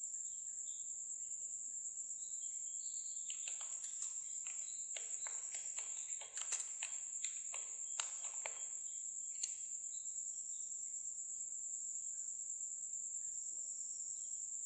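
Computer keyboard typing: a quick run of keystroke clicks from about three and a half to nine and a half seconds in. A steady high-pitched whine runs underneath throughout.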